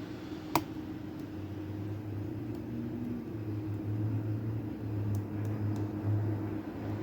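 Lock-picking tools working in a challenge lock: one sharp metallic click about half a second in and a few faint ticks near the end, over a steady low hum.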